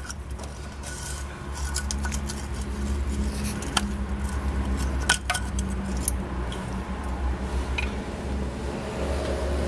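Small metallic clinks and clicks of a hand tool on a hose clamp as it is pried open and worked loose, a few sharp ones about four and five seconds in, over a steady low hum.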